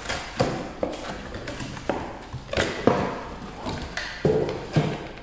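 Cardboard box and card packing inserts scraping and rustling, with a series of knocks and thumps, as an electric hand planer is pulled out of its box.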